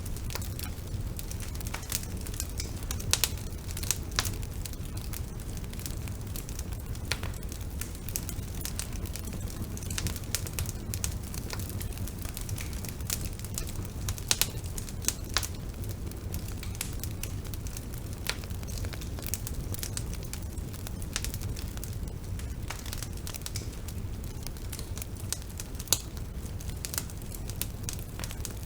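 Bonfire burning: a steady low rumble of flames with dense, irregular crackling of burning wood and a few louder pops.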